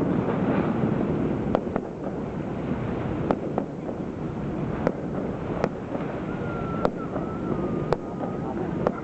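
Aerial fireworks shells bursting: scattered sharp bangs and cracks at irregular intervals, over a steady rush of background noise. A thin whistling tone is held for about two seconds near the end.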